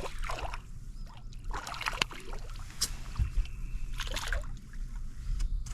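Water splashing and sloshing beside a fishing boat as a hooked freshwater drum is reeled in, with scattered short splashes and knocks over a steady low rumble.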